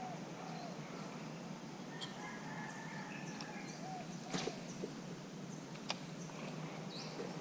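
Quiet riverside ambience with faint scattered bird calls and chirps, broken by three sharp clicks, the loudest about four seconds in.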